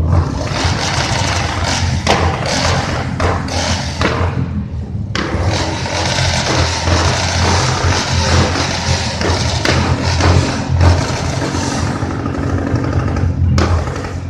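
Royal Enfield 350cc single-cylinder engine running, its exhaust letting off repeated sharp firecracker-like pops and bangs over the thumping engine note.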